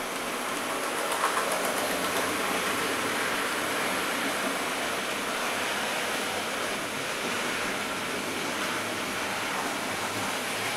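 Hornby OO gauge model steam locomotives pulling wagons around the layout's track, giving a steady running noise of motors and wheels on rails.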